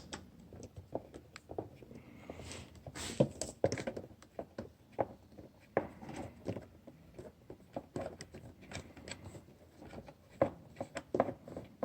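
Scattered light clicks, taps and rubs of a hand tool working loose a screw on a motorcycle's air filter housing, with small plastic parts being handled.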